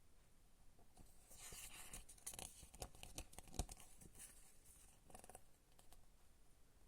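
Faint handling of a CD and its packaging: rustling, with a run of sharp clicks in the middle, the loudest about halfway through.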